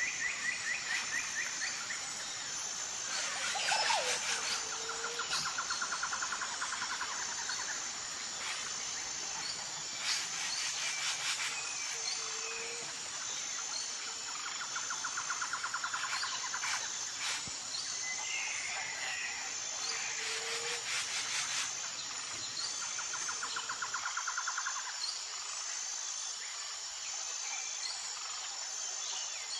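Birds calling outdoors over a steady, high, pulsing insect chorus. A rapid trill comes back every few seconds among scattered short chirps.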